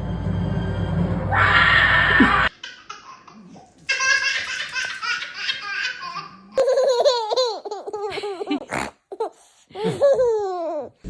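A baby laughing and giggling in short repeated bursts, with pitch that swoops up and down. The sound changes abruptly twice.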